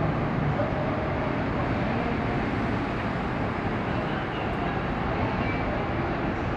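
Steady background rumble and hum of a ferry port, with a faint steady machine tone running through it.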